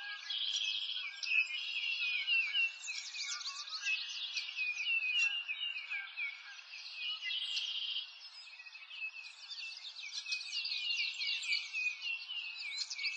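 A chorus of birds chirping and twittering, a dense run of quick, high, downward-sliding chirps overlapping one another, dipping a little quieter about eight seconds in.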